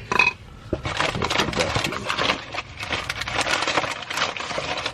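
New brake pads and their packaging being handled: a quick squeak near the start, then a steady run of rapid clicks, clinks and rustling.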